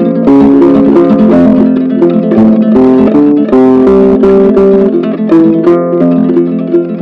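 Background music led by plucked guitar notes in a steady, gentle melody.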